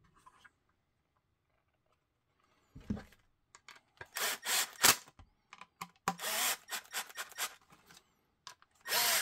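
Cordless impact driver run in several short bursts, tightening the screws that fasten a QLS fork to a Kydex holster, after a single knock about three seconds in.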